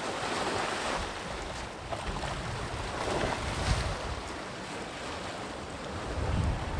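Sea waves breaking and washing in, with a hissing surge near the start and another about three seconds in. Wind buffets the microphone with low rumbles, strongest near the end.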